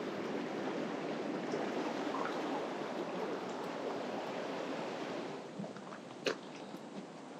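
Mountain stream water rushing over rocks, a steady hiss that drops in level about five seconds in. A single sharp click sounds near the end.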